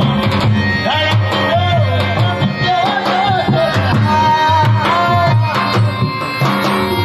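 Rajasthani folk music: a hand drum beats a steady rhythm under a wavering melody line.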